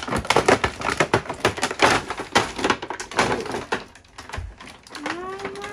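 Stiff clear plastic packaging crinkling and crackling as a blister tray holding slime pots is pulled open, a quick run of crackles for about four seconds. A voice comes in near the end.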